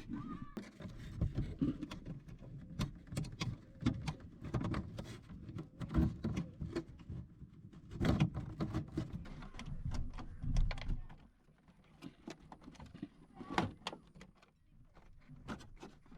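Clicks, knocks and rubbing from a loosened clamp being slid through a bracket and adjusted by hand, over low rumbling handling noise that drops away about eleven seconds in, leaving scattered clicks.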